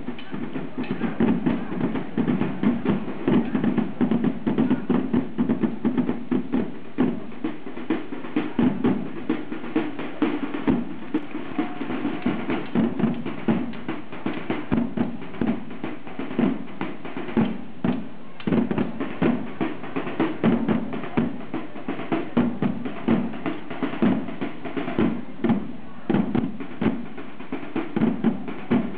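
A line of drummers playing side drums together in a fast, unbroken rolling rhythm.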